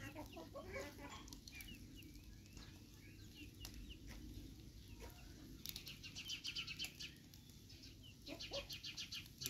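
Chickens clucking faintly, with a quick run of high chirps around the middle and again near the end. Occasional sharp crackles come from the wood fire under the iron griddle.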